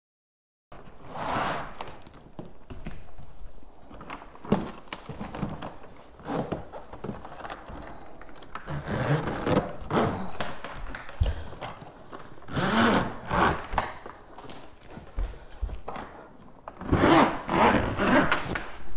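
Skis being packed into a hardside roller ski bag: irregular scraping and knocking as the skis are pushed in and shifted, with several louder rushing sweeps, the last near the end as the bag's zipper is run closed.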